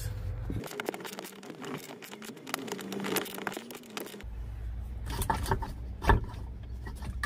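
Irregular scraping, clicking and knocking of hands and tools working among metal parts behind a truck's dashboard, easing the brake booster loose. A low rumble drops out about half a second in and returns about four seconds in.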